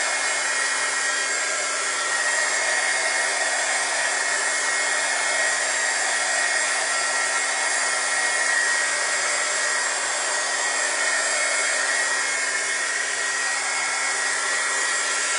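Handheld craft heat tool running steadily, a constant rush of blown air with a steady motor whine, as it blows a watery acrylic wash around on a paper page. It cuts off suddenly at the very end.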